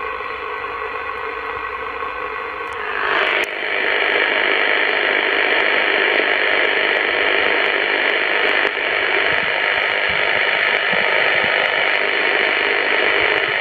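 Receiver hiss and static from a CB radio on upper sideband at 27.595 MHz, played through its external Euro CB speaker, with no station coming through. The hiss gets louder about three seconds in and then holds steady.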